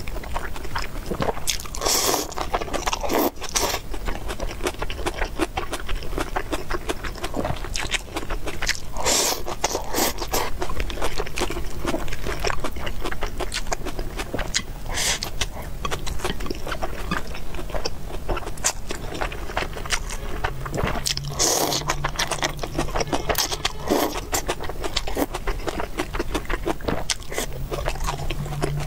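Close-miked chewing of a mouthful of rice and braised food: a steady run of small wet clicks and smacks, with a louder burst every few seconds.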